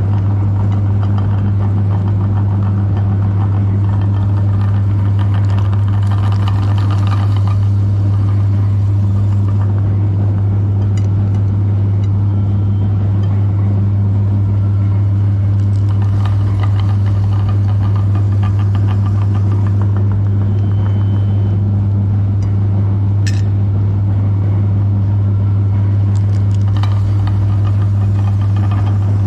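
Electric meat grinder running with a loud, steady motor hum, grinding chocolate bars, with faint clicks now and then.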